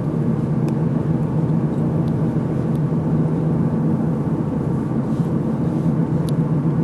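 Steady low rumble of a car driving along at an even speed.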